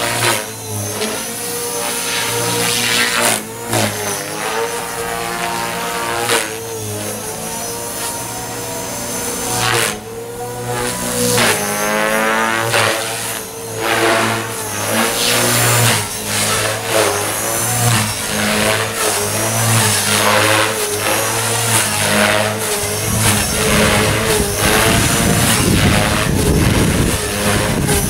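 Align T-Rex 450 DFC electric RC helicopter with a longer tail boom flying: the whine of its rotor and motor rises and falls in pitch as it manoeuvres. A low rushing noise joins in for the last few seconds.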